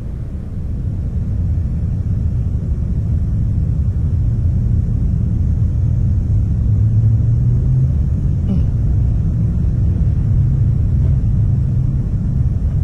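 Wind buffeting a small outdoor camera's microphone: a steady low rumble.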